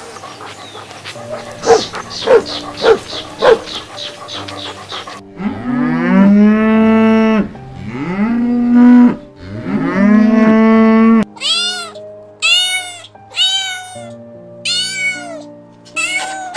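A few short sharp calls, then a cow mooing three times in long calls that rise and then hold. After that, a cat meows about five times in short, high, arching calls.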